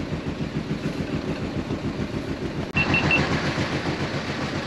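A small fishing boat's engine idling with a steady, rapid low throb. Just after the middle there is a brief dropout, followed by three quick, identical high beeps.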